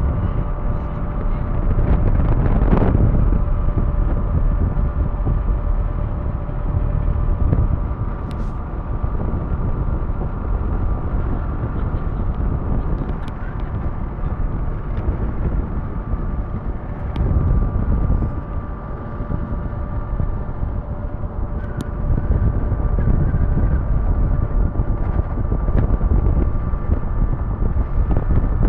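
Ferry's engine running with a steady hum, under gusty wind buffeting the microphone.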